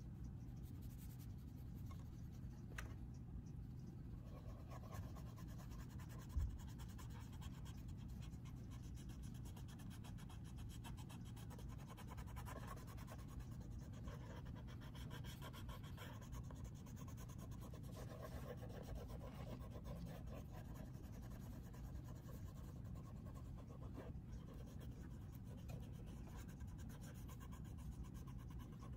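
Faint scratching and rubbing of an oil pastel stick and a cotton swab working over sketchbook paper, over a steady low hum. One soft low thump comes about six seconds in.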